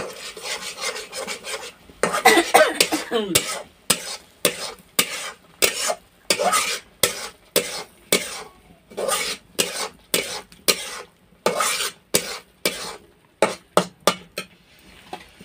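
A metal spatula scraping and stirring a masala paste frying in a metal kadai, in short repeated strokes about twice a second.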